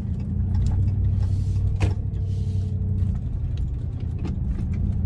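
Steady low engine and road rumble inside a moving car's cabin, with one sharp click about two seconds in.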